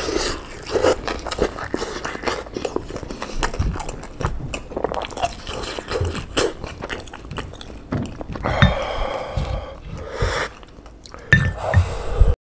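Close-up chewing of gyoza dumplings: irregular wet mouth sounds and soft crunches, with small clicks throughout.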